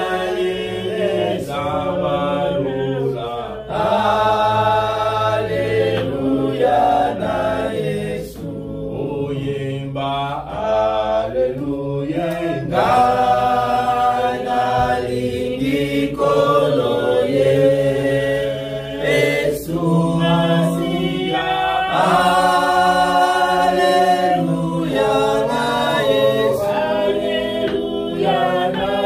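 A congregation of men's and women's voices sings a worship chorus together, unaccompanied, in long held notes.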